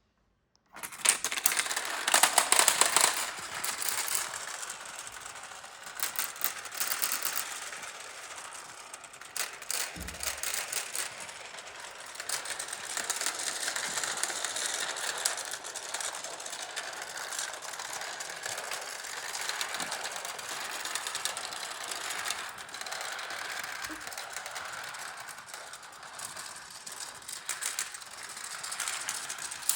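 Marbles rolling and clattering through a Gravitrax plastic marble run. The rolling runs on with dense small clicks, and it is loudest in the first few seconds after it starts, just under a second in.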